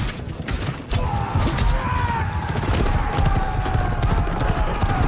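A group of horses galloping, their hooves pounding in a dense, rapid clatter. From about a second in, a thin held high tone drifts slowly over the hoofbeats.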